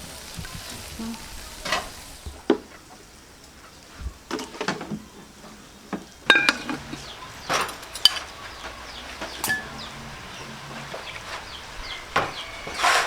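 Food sizzling in the cooking, with irregular clinks and scrapes of a utensil against a pan or dish, a couple of them ringing briefly.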